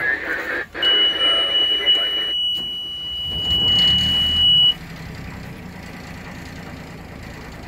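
Yanmar 3GM30F three-cylinder diesel being started: the engine panel's warning buzzer sounds a steady high beep for about four seconds while the engine is cranked, then cuts off suddenly as the engine catches. The diesel then runs at a steady idle.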